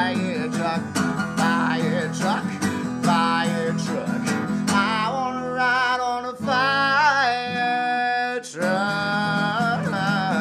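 A man singing to a strummed acoustic guitar. About two-thirds of the way through he holds one long note while the guitar stops, and then the strumming comes back in.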